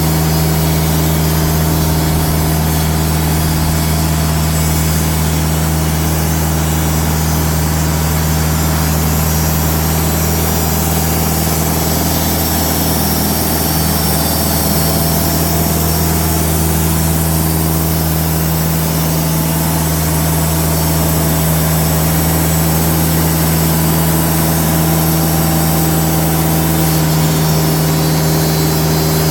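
Diesel engine of a TimberKing band sawmill running steadily under even load as the band blade slabs a black walnut log, with a constant engine hum.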